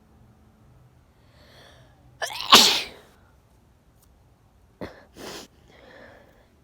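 A person sneezing: a breathy in-breath, then one loud, huge sneeze about two and a half seconds in. Near five seconds there is a shorter, sharp second burst, followed by another breath.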